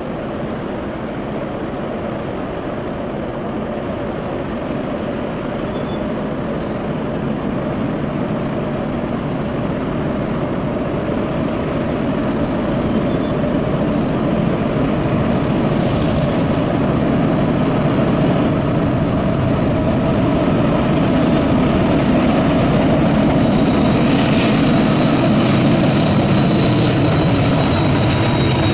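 GE AC4400CW and ES44AC diesel-electric locomotives working hard under load at the head of a long, loaded potash train on an upgrade. Their engines run steadily and grow louder as the lead units approach, and a thin high whine comes in near the end.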